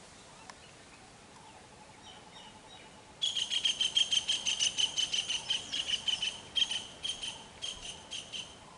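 A bird calling close by: a loud, rapid run of high, sharp chirps that starts abruptly about three seconds in, goes on for about three seconds, then breaks into a few short bursts before stopping.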